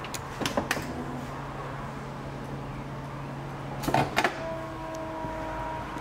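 Audi Q5's electric tailgate closing after its close button is pressed: a few clicks at the press, then a latch clunk about four seconds in, followed by a steady tone.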